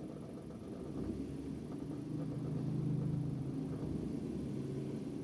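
Suzuki Every DA17V's small three-cylinder engine brought up off its 800 rpm idle with the accelerator, the engine note rising from about a second in and easing back near the end. The rattle it makes only at low idle fades once the revs go above about 1,000 rpm; the owner suspects a water pump or alternator bearing, since a new tensioner bearing did not cure it.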